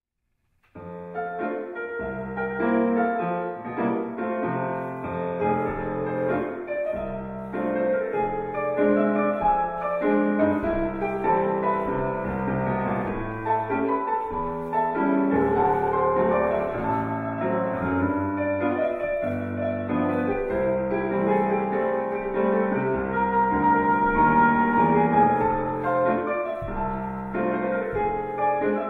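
Solo piano music accompanying a ballet exercise, starting about a second in.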